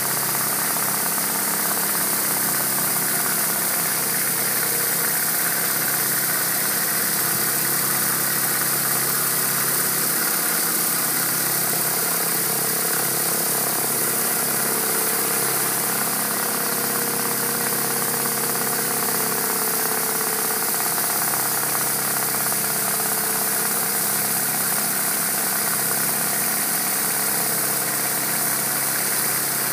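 Steady hiss of high-pressure water jetting from a rotary surface cleaner onto clay roof tiles, over the steady hum of the pressure washer's engine.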